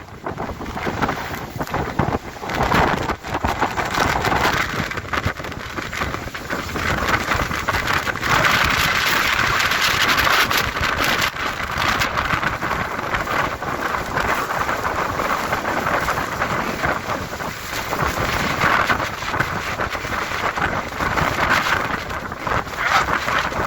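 Hurricane wind and driving rain, gusting hard, with rain spattering and wind buffeting the microphone. The storm swells loudest a third of the way in.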